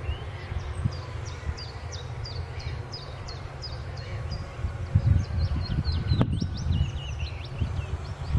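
A small bird calling a rapid series of short, high, falling chirps, about two a second, over a low, uneven outdoor rumble. A single sharp click sounds about six seconds in.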